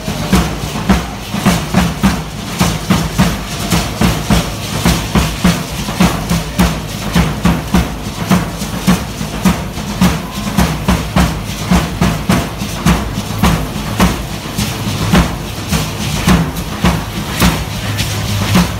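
Matachines dance music: drums beaten in a steady pulse of about two strokes a second, with the dancers' gourd rattles shaking along in a continuous rattle.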